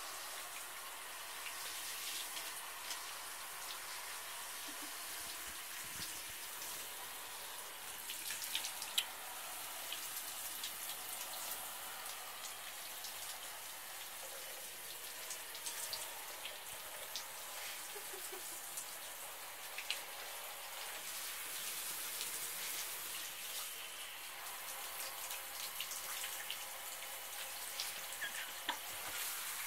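Handheld shower head spraying water onto a cat's fur and into a bathtub: a steady hiss of running water, with scattered small drips and taps.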